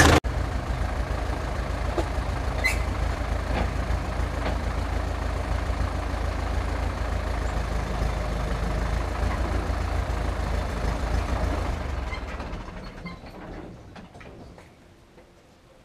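Tractor's diesel engine idling steadily, then dying away over a few seconds near the end as it is switched off.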